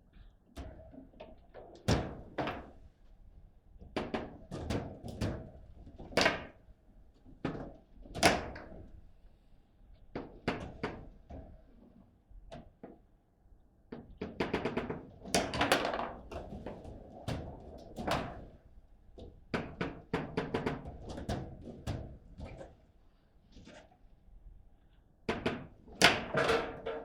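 Table football game in play: irregular sharp knocks and clacks as the ball is struck by the rod-mounted players and bangs against the table walls, with a quick flurry of hits in the middle and a few loud strikes near the end.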